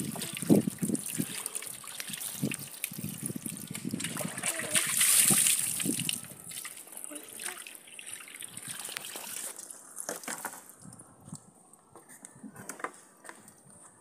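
Water poured from a plastic jug over a cleaned fish on a wooden board, splashing and trickling as the fish is rinsed; loudest about five seconds in, then falling away to quiet dribbles after about six seconds.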